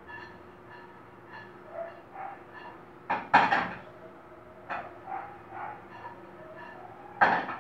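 Non-stick frying pan being shaken over a gas burner to toast sliced almonds: the almonds slide and rattle in the pan between sharp knocks of the pan against the metal grate, the loudest about three seconds in, others near five and seven seconds.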